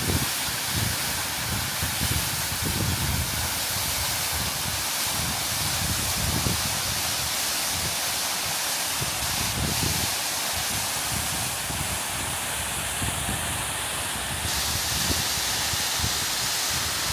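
Waterfall close up: a dense, steady rush of falling water, with uneven low rumbles of the fall's wind buffeting the microphone.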